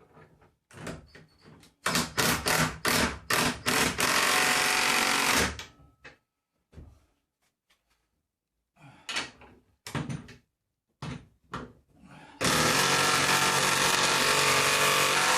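A power drill run in a string of short trigger bursts, then held on for about a second and a half. After a few light handling knocks it runs steadily again for the last three seconds.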